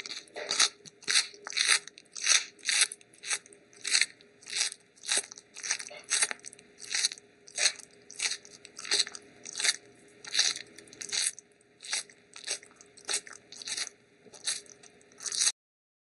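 Rhythmic crunching, about one and a half crunches a second, evenly repeated, cutting off suddenly near the end.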